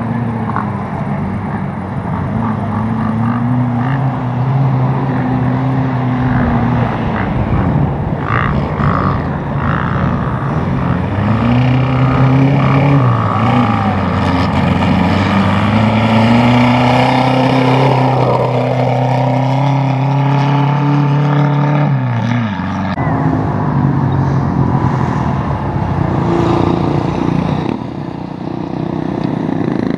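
Safari race car engine under hard acceleration, its pitch climbing and dropping through gear changes. Near the end it holds one long slowly rising pull, then cuts off abruptly about 23 seconds in, leaving a rougher mechanical and wind noise.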